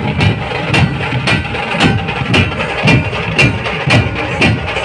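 A large group of barrel drums (dhol) played together in a fast, driving rhythm, with a sharp accented stroke about twice a second over continuous low beats.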